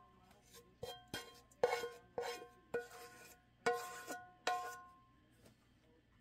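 Wooden spoon knocking against the rim of a nonstick frying pan, about seven sharp taps in the first five seconds, each leaving the pan ringing briefly, as the last of the topping is knocked off the spoon.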